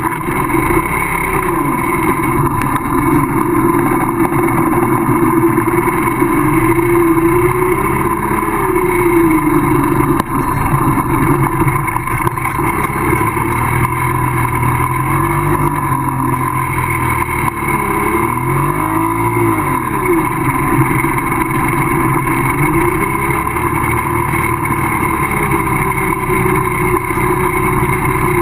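Minsk motorcycle's two-stroke single-cylinder engine running, heard from the bike itself, its pitch rising and falling as the throttle is opened and eased.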